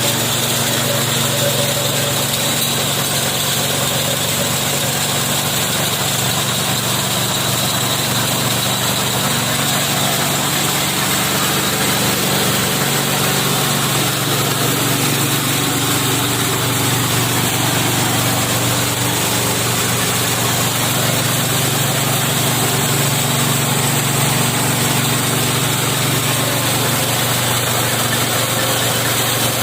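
KD-580S rice milling machine driven by its 7.5 HP MGX-210 four-stroke petrol engine, running steadily at a constant speed with a continuous hum and rattling hiss.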